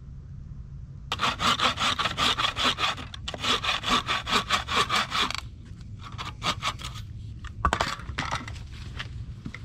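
Hand saw cutting through a wooden pole in quick, even strokes, about five a second, breaking off after about four seconds. A few slower strokes and one sharp knock follow near the end.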